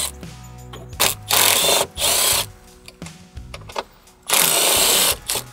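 Cordless power driver running in three short bursts, each well under a second, about one, two and four seconds in.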